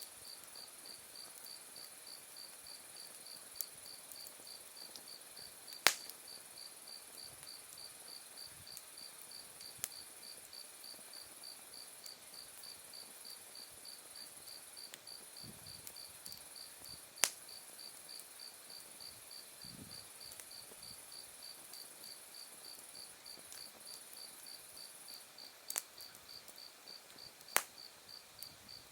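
Autumn night insects calling, crickets among them: an evenly pulsed high chirp goes on throughout while a thin, higher steady trill stops near the end. A campfire's burning wood and embers give a few sharp pops and crackles, three of them louder than the rest.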